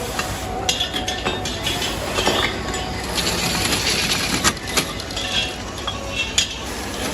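Metal pieces clinking and tapping against each other: about half a dozen sharp strikes, each ringing briefly, over a steady low rumble.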